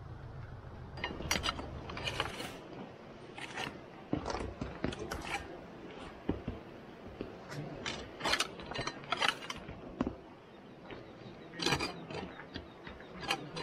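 Long-handled hoe scraping and striking stony ground, clearing grass and stones, in irregular sharp knocks and scrapes. A low hum stops about two seconds in.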